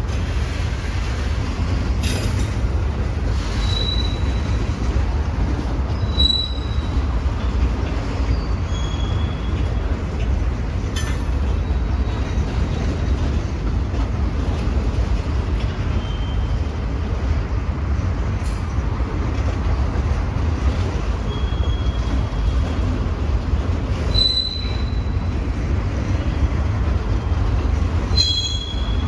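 Freight train rolling past with a steady low rumble. Its steel wheels give short high squeals every few seconds, and there are a few sharp clicks.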